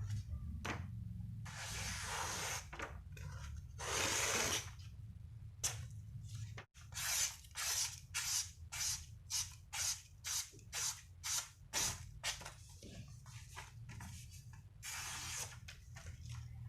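Steel knife blade being worked by hand against an abrasive, sharpening or sanding the rust-restored nakiri, in hissing back-and-forth strokes: a few long strokes, then a run of quick short strokes about two a second, then another long one near the end. A steady low hum runs underneath.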